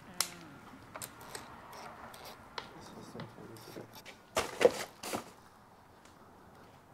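Scattered sharp clicks and clinks of metal tools and engine parts being handled, with a louder burst of clatter about four and a half seconds in.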